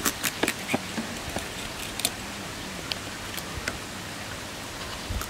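Fish scales being scraped off against the blade of a boti, the curved Bengali fish-cutting knife. It makes a run of sharp scratchy clicks, thickest in the first second and scattered after that.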